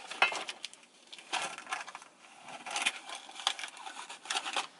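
Paper wrapper around a lettuce-wrapped burger being handled: several short bursts of crisp crinkling and crunching.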